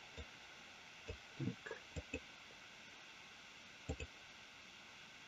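Faint, scattered clicks of a computer mouse: a few single clicks, and two quick pairs about two and four seconds in.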